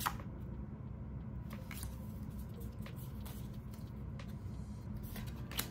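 Trading cards being handled: soft slides and a few light clicks as cards are pulled from a freshly opened booster pack and squared up, over a low steady hum.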